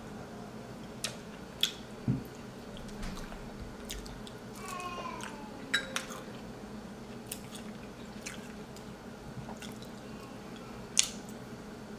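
Wet chewing and squishing of someone eating a saucy seafood boil, with scattered small clicks and a sharper click near the end. A brief falling tone sounds about five seconds in.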